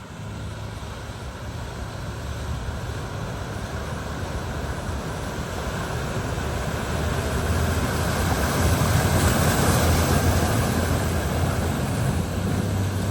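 A vehicle driving through floodwater: a low engine hum under a rushing wash of water that builds, is loudest about two-thirds of the way through, then eases slightly.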